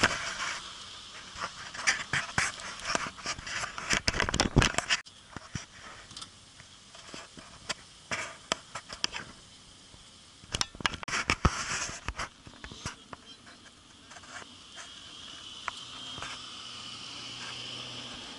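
Irregular bursts of crackling clicks, thickest in the first five seconds and again around eleven seconds in; from about fourteen seconds a car's tyres squeal faintly, growing as it slides.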